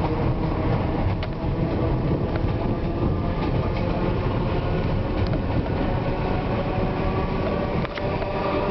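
ER2R electric multiple unit running past close by: a steady rumble of wheels on the rails, with a few short sharp clicks.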